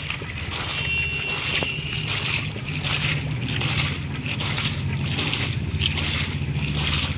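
Engine running steadily with a fast, even beat.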